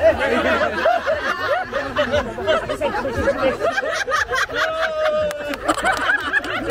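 A group of people laughing and shouting together, many voices at once, with one long drawn-out shout about four and a half seconds in.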